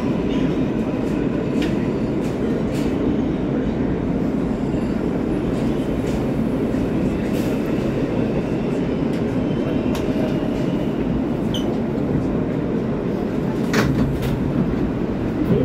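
R143 subway car heard from inside, running on the rails and coming into a station: a steady rumble of wheels on track with a faint whine over it. A couple of sharp clicks come near the end as it stops.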